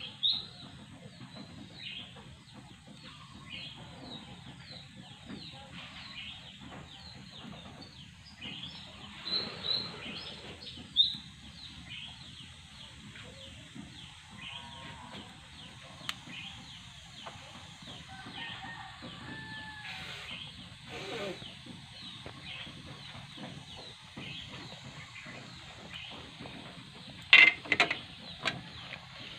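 Small birds chirping over and over, above the crackle of shellfish boiling in a covered pot. Near the end come a few sharp clinks as the metal-rimmed glass lid is taken off.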